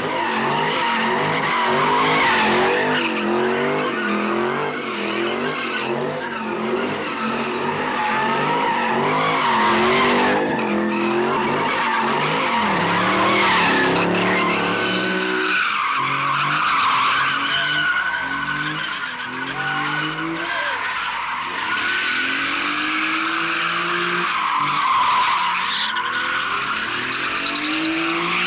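Car engine revving up and down repeatedly while the tyres squeal and skid, as a car drifts in donuts.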